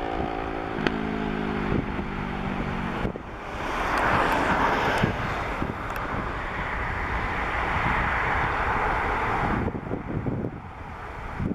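Airbus A350-900's Rolls-Royce Trent XWB turbofan jet engines during takeoff. A pitched whine is heard for the first three seconds, then a broad jet roar swells about four seconds in and drops away near the end. Wind buffets the microphone.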